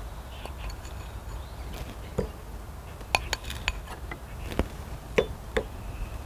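Wooden spoon and small ceramic sauce bowls clinking and tapping as dipping sauce is spooned out: about eight light, scattered clinks over a low steady rumble.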